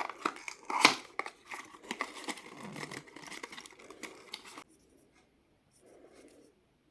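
Cardboard and paper packaging being handled, torn open and crinkled by hand, with a sharp click about a second in. It stops abruptly after about four and a half seconds, leaving only faint rustles.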